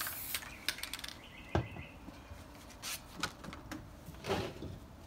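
Paper sheets being handled and set against the register stops on a hinged screen-printing press: light rustles and taps, with one dull knock about one and a half seconds in.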